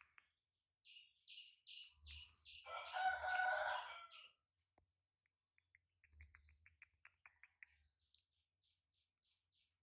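Bird calls: a run of short high chirps, about three a second, then one louder call lasting about a second and a half. Faint clicks follow.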